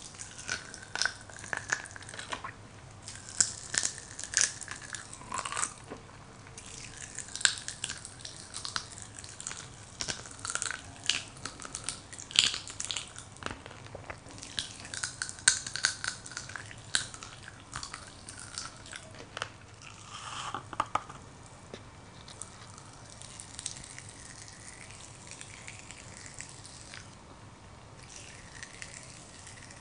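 Crack-Ups popping candy crackling and popping in the mouth: rapid, irregular sharp pops, thinning out after about twenty seconds.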